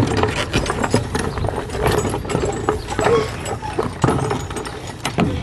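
Irregular hollow knocks and clatter of a small child's steps on the wooden planks of a playground chain bridge, with the bridge's metal chains clinking.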